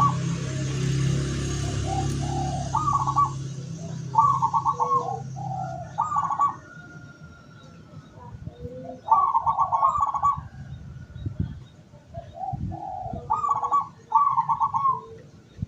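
Zebra doves (perkutut) cooing: short phrases of a few rapid, trilled notes, repeated in bouts of two or three with pauses between. A low steady hum sounds underneath for the first few seconds.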